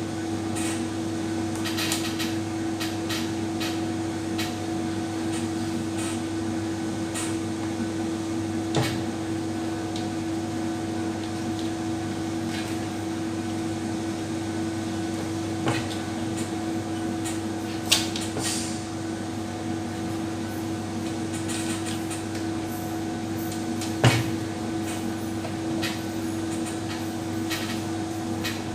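A steady machine hum, like a fan or air conditioner, runs throughout. A few sharp clicks and knocks come at scattered moments; two near the end of the middle stretch are the loudest.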